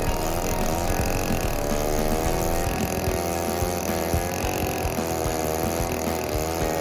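Neotec 8105 105cc two-stroke chainsaw on a 36-inch Alaskan mill, running under load as it rips a slab from a marri log. The engine pitch drifts slightly up and down as the cut goes on.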